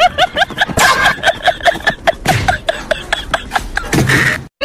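Comedy sound effect added to the soundtrack: a rapid run of short, squeaky rising chirps, about six a second, like a sped-up giggle, over sharp clicking beats. It cuts off abruptly near the end.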